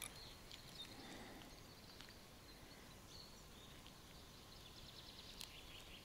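Near silence: faint outdoor ambience with a few faint, short high chirps and light clicks.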